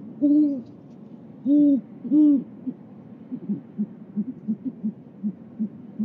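Great horned owls hooting as the male comes to the nest with food for the incubating female: three deep hoots in the first couple of seconds, then a quicker run of short, softer low notes, about four a second.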